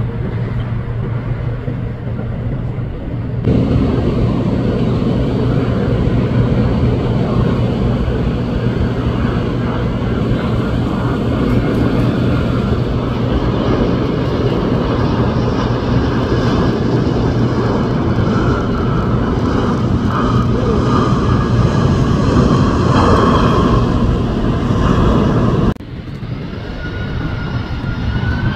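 Jet airliner engines running loud and steady as a twin-engine widebody jet lands. The clip cuts sharply to a Boeing 747 freighter whose engines give a whine rising in pitch near the end as they spool up.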